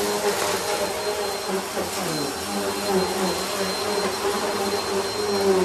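Bissell bagless upright vacuum cleaner running as it is pushed back and forth across a rug: a steady motor hum with a thin high whine, its pitch wavering a little.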